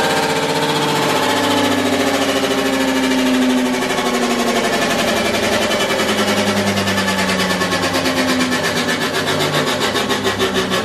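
LG front-loading washing machine running with its shipping bolts still in, the drum's motion shaking the cabinet into a loud mechanical drone and rattle. With the bolts in place the drum cannot move on its suspension, so the vibration passes straight into the machine's body. A rhythmic beating grows stronger near the end.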